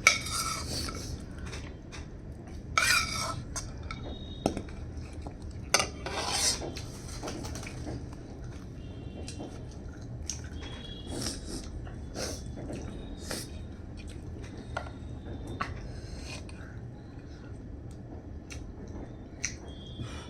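Dishes and cutlery clinking and scraping during a meal: scattered light clicks, with a few louder scrapes in the first several seconds.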